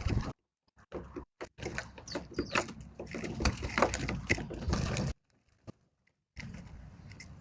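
Eurasian tree sparrows feeding: a jumble of sharp taps and knocks with a few short, high chirps. The sound drops out to silence twice.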